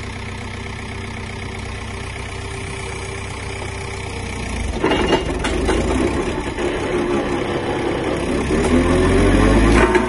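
Heavy equipment engine idling steadily, then getting louder about halfway through with a couple of sharp knocks, and revving up, rising in pitch, near the end.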